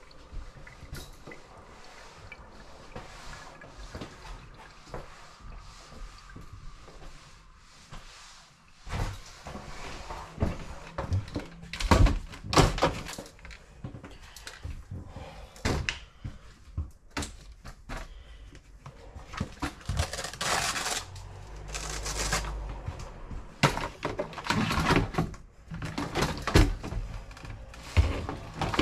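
Household knocks, thuds and clatter of objects being handled, set down and bumped, irregular and sparse at first, then much busier from about nine seconds in.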